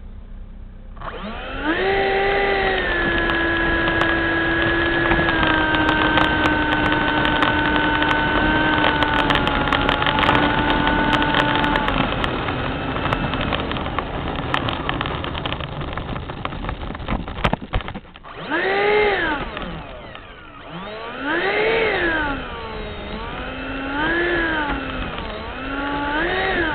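Electric ducted fan of a 70mm EDF model jet running on the ground. It spools up about a second in and holds a steady whine at low throttle, its pitch sagging slightly until it stops about halfway through. After a few seconds of clicks and handling noise, it is blipped up and down four times, the whine rising and falling roughly every two and a half seconds.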